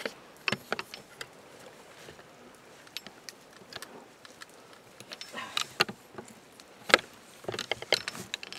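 Scattered clicks and knocks of fishing and camping gear being handled and packed up, with one loud knock about seven seconds in.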